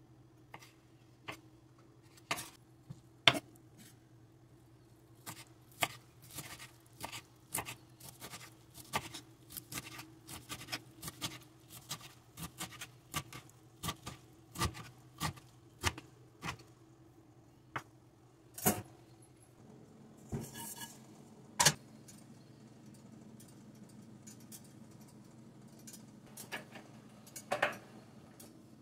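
Knife chopping on a bamboo cutting board, cutting tomato and kale: single sharp knocks about a second apart at first, then a quicker run of chops, two or three a second, thinning out again near the end.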